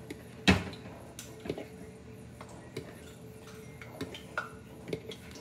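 A fork clinking and tapping against a bowl while dipping nuggets in egg wash: one sharp knock about half a second in, then scattered lighter taps.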